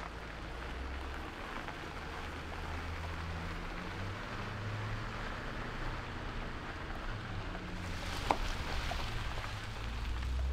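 Pickup truck engine running as it tows a loaded boat trailer away down a gravel driveway, its low hum shifting in pitch, over the steady crunch of tyres on gravel. One sharp knock about eight seconds in.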